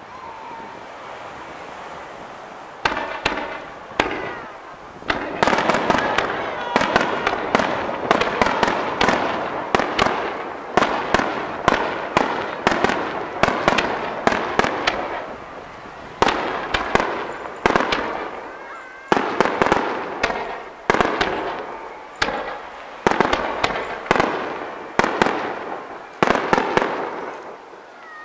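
Aerial fireworks display: shells bursting with sharp bangs in quick succession, about one to two a second, starting about three seconds in, with a dense rush of sound between the bangs.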